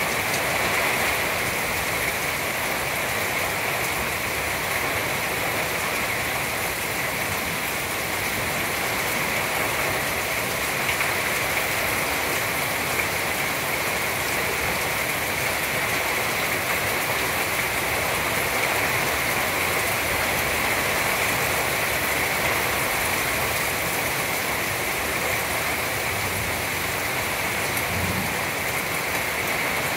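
Heavy thunderstorm rain falling steadily on the trees and wooden deck, an even, unbroken hiss.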